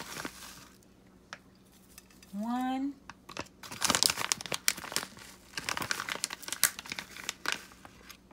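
Seasoning package crinkling and rustling as it is handled and spooned from, in bursts through the middle of the stretch.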